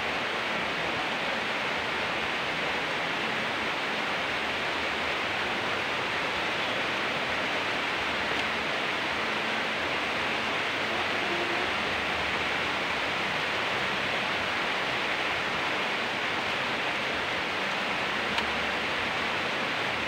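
Steady rain falling, an even hiss of drops with no pauses.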